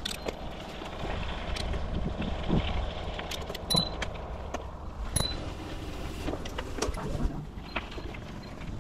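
Bicycle being ridden, with wind rumble on the microphone and tyre noise. Frequent light clicks and rattles come from the bike as it rolls over uneven ground.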